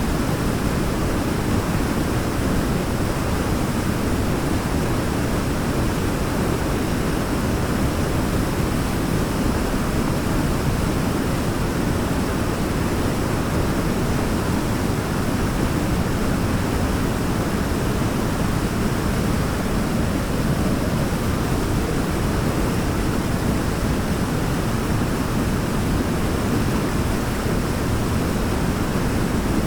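Waterfall: a steady, unbroken rush of falling water, deepest in the low range.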